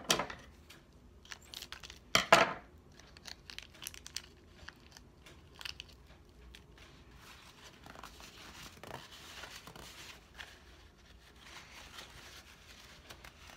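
A small clear plastic jewelry packet being crinkled and torn open by hand, with sharp crackles loudest at the start and again about two seconds in, then softer rustling of plastic.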